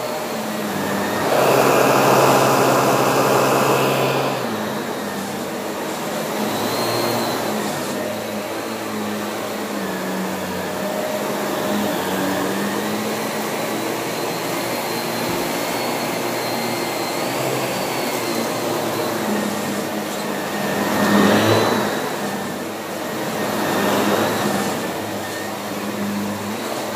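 Shark Navigator upright vacuum cleaner running: a steady motor hum with a high whine. The sound swells louder for a couple of seconds near the start, and again twice near the end.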